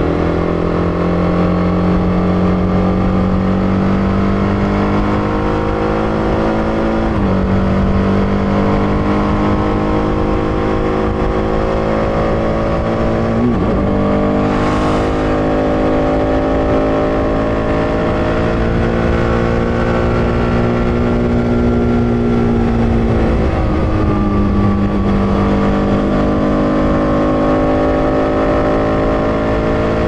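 TVS Apache RR 310's 312 cc single-cylinder engine running under way at a steady cruise, its note climbing slowly. There are three brief dips in pitch, about seven, thirteen and twenty-four seconds in. A short rush of noise comes near the middle.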